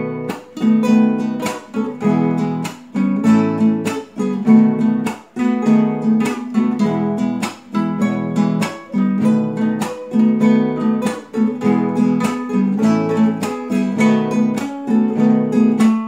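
Nylon-string classical guitar strumming the chords B7, E and A in a steady rhythm of sharp strokes.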